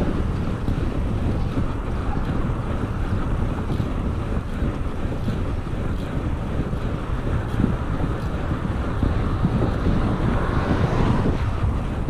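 Wind buffeting the microphone of a cyclist riding along the road at speed: a steady low rush, with a swell of brighter hiss near the end.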